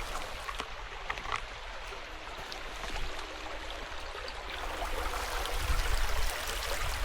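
Creek water running over rocks: a steady rushing. A low rumble rises near the end.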